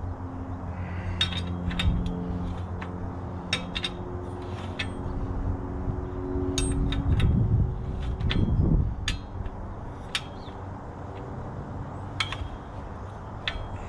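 Metal tools clinking and knocking against bicycle parts in irregular, sharp, ringing clicks while a stuck component is worked loose. A steady low hum stops about two seconds in.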